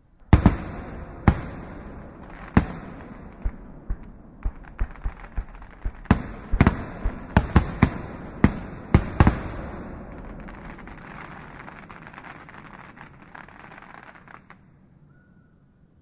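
Fireworks going off: a string of sharp bangs at uneven intervals, packed closest from about six to nine seconds in, then a dense crackle that fades out near the end.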